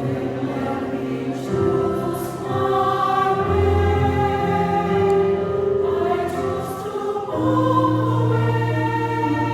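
Church choir singing a sacred anthem in parts, holding sustained chords that shift every second or two.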